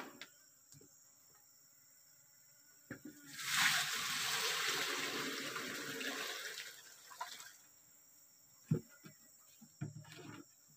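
Palm sap poured from a plastic jerry can through a strainer into a large pan, splashing steadily for about four seconds, followed by a few short knocks near the end.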